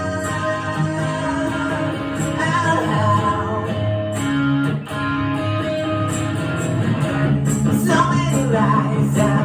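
Live song: a male singer with guitar accompaniment, strummed chords under a sung melody.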